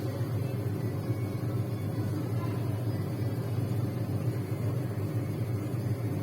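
Whirlpool washing machine running with a steady low hum.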